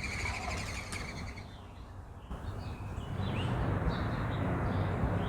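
Small birds chirping faintly and intermittently over a steady outdoor background rumble, the chirps coming mostly in the second half.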